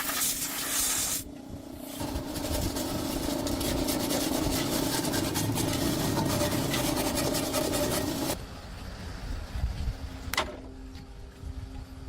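Rasping, scraping work noise made of fine rapid strokes that stops abruptly about eight seconds in. Near the end come a single sharp click and a faint steady hum.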